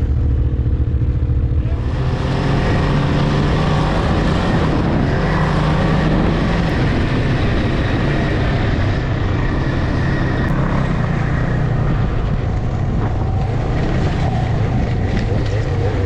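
Snowmobile engine running steadily while being ridden through snow, heard from the rider's seat, with a rushing hiss that grows louder about two seconds in.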